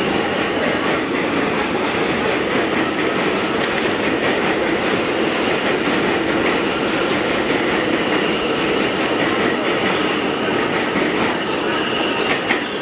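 New York City subway train moving along the station platform: a steady run of wheel-on-rail noise with a faint high whine over it.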